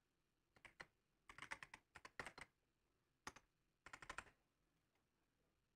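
Faint computer keyboard typing: several short runs of key clicks, about five bursts spread over four seconds.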